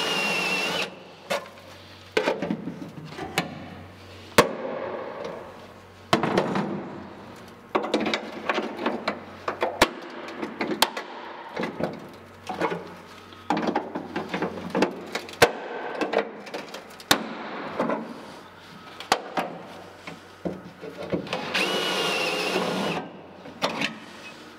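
A drill spinning a spot weld cutter into a spot weld in sheet steel, a short run with a steady whine at the start and another near the end. In between, repeated sharp metal knocks, clicks and scraping as pliers grip and work the loosened steel panel free.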